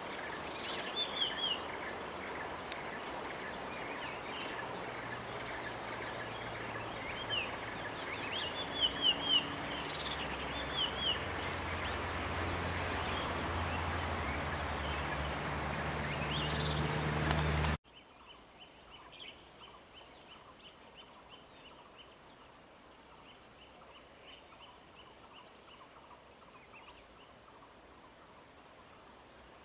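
Forest ambience: insects droning steadily at a high pitch, with birds giving short chirps over it. About two-thirds of the way through the sound cuts abruptly to a quieter ambience with a quick run of ticking calls.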